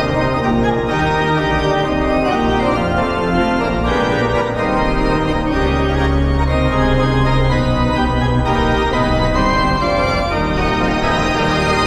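Organ music played as a goal celebration, sustained chords changing every second or so, with a deeper held chord in the middle.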